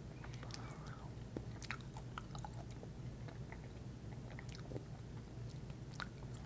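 Faint chewing and mouth sounds with scattered small clicks as a sweet-and-spicy tamarind candy is eaten, over a steady low hum.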